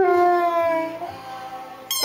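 Dog 'talking' in a long, sing-song howl whose pitch slides slowly down and fades about halfway through, with a new howl starting and rising in pitch near the end.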